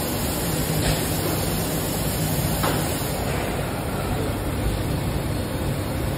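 Steady hum and hiss of running injection molding machinery, with a couple of faint clicks about a second and two and a half seconds in.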